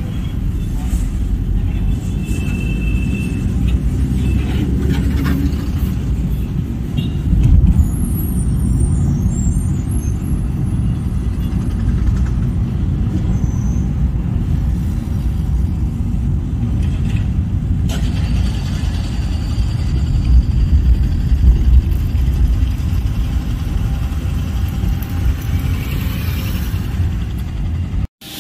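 City road traffic: a steady low rumble of vehicle engines and road noise, with a louder bump about seven and a half seconds in.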